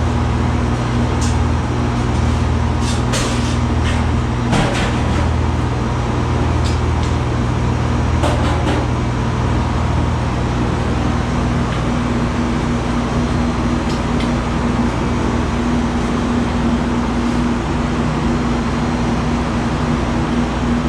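Milking-system machinery in a dairy milk house running with a steady, loud hum and a pulsing low throb, with a few sharp metallic clicks about three to five seconds in and again near eight and a half seconds.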